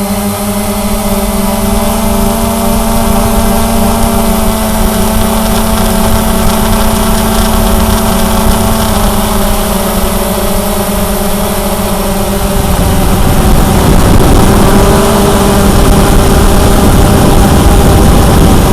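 Cheerson CX-20 quadcopter's brushless motors and propellers whining steadily in flight, their pitch drifting slightly. About two-thirds of the way in the sound grows louder and rougher, with more rushing noise.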